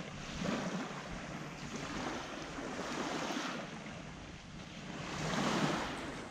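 Small sea waves washing onto the shore in slow swells, with wind buffeting the microphone.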